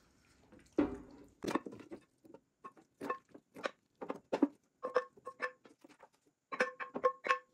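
Wooden spoon tapping and scraping a chicken and pepper mix out of a glass bowl into air fryer baskets: an irregular string of light knocks, several with a short ring.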